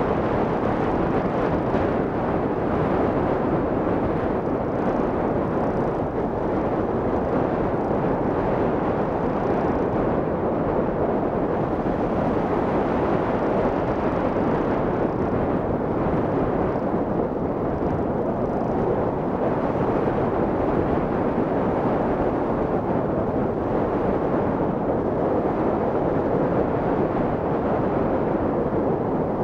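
Steady rush of airflow over a hang glider in flight, buffeting a microphone mounted on the glider's frame.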